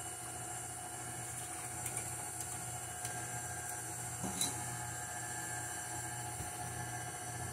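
KitchenAid tilt-head stand mixer running steadily, its flat beater mixing a cake batter that milk has just been added to, with a light click about four and a half seconds in.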